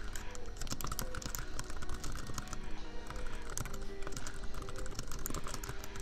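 Computer keyboard typing: quick, irregular key clicks in runs. Underneath are soft lofi background music with held notes and a steady low laptop-fan hum.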